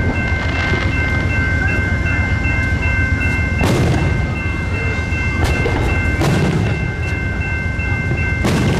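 Fireworks booming overhead, four sharp reports about 3.5, 5.5, 6.5 and 8.5 seconds in, over the steady low rumble of an Amtrak Superliner train standing at the crossing and the continuous ringing of grade-crossing signal bells.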